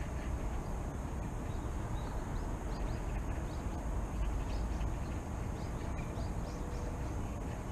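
Small birds chirping in many short, quick calls over a steady low rumble of distant city traffic, with a faint steady high tone throughout.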